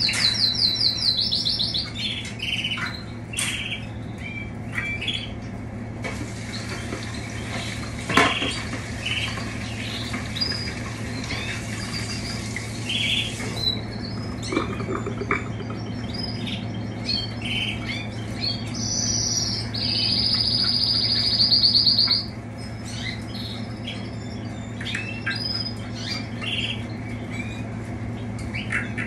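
Canaries in an aviary chirping and calling, with a rapid high trill of canary song near the start and a louder one about two-thirds of the way through. A steady low hum lies underneath, and a single sharp knock comes about eight seconds in.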